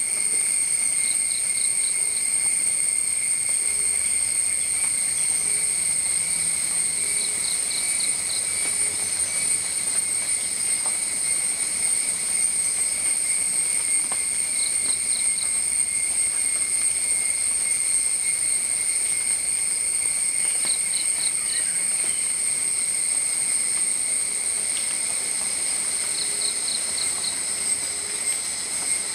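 Steady high-pitched insect chorus, likely crickets, with a short run of four or five quick chirps about every six seconds.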